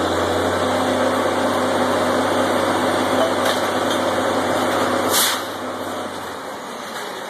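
Drilling rig's engines running steadily. About five seconds in there is a short sharp burst of noise, the low hum drops out, and the rig runs quieter.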